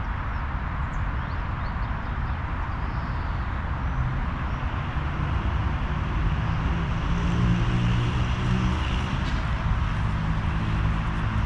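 Outdoor ambience of wind rumbling on the microphone. Midway through, a distant engine drone rises and holds a steady low hum, with a few faint bird chirps early on.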